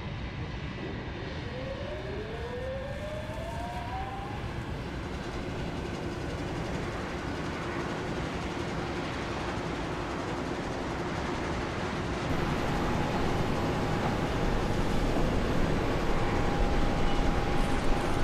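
Jet airliner engine noise: a broad rushing hum that slowly grows louder. Two rising whines come in the first few seconds, and a steady whine joins about two-thirds of the way through.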